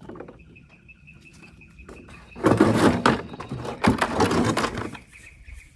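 A rough clatter and rustle of handling noise lasting about two and a half seconds, starting a little before halfway through, over a faint steady high tone.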